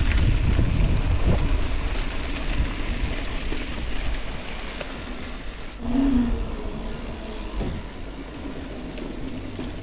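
Wind buffeting the microphone and rolling noise from a mountain bike being ridden, heaviest in the first couple of seconds and easing after. A brief low hum sounds about six seconds in.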